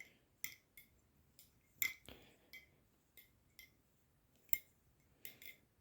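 Faint, scattered metallic clicks and clacks from a balisong (butterfly knife), its handles and latch knocking as it is handled. The sharpest clicks come about two seconds in and again about four and a half seconds in.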